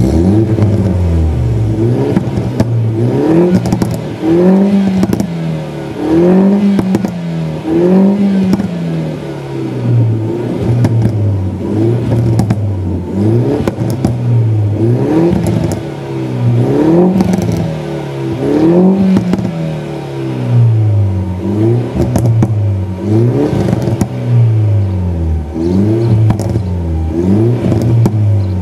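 Mini Cooper S R56's 1.6-litre turbocharged four-cylinder being revved in repeated blips while stationary, heard through a Milltek Sport cat-back exhaust. The revs rise and fall every second or two, with sharp pops and crackles as the revs drop.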